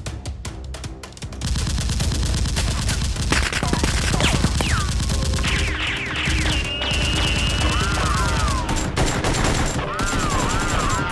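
Rapid gunfire sound effects, like automatic weapons firing in long bursts, starting about a second and a half in, with falling whistle-like sweeps over background music.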